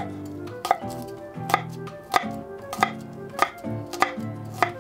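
Chef's knife chopping an onion on a wooden cutting board: sharp, evenly paced strokes, about three every two seconds, over soft background music.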